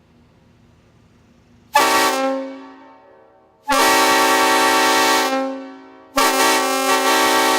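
Homemade PVC replica of a Leslie S5T five-chime train horn blowing three loud blasts, several notes sounding together as a chord: a short first blast, a longer second one, and a third starting near the end.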